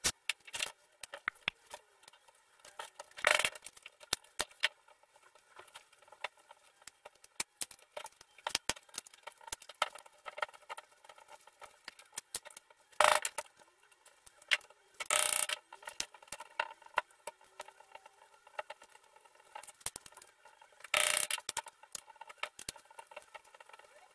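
Small metal tools clicking, tapping and scraping on a dismantled chainsaw crankcase, with short hissing bursts of an aerosol spray can about three seconds in, midway and near the end.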